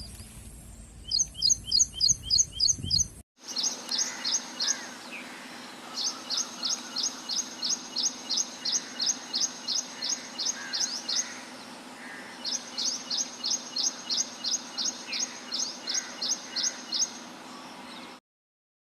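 A songbird singing: runs of high, sharp, sweeping notes repeated about three a second, each run lasting several seconds, over a faint steady background hum. There is a brief break about three seconds in, and the sound cuts off suddenly near the end.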